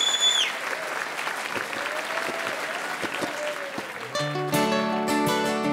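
Audience applauding, with a loud shrill whistle at the start and a few cheers; the clapping thins out, and about four seconds in an acoustic guitar and a ukulele start strumming chords.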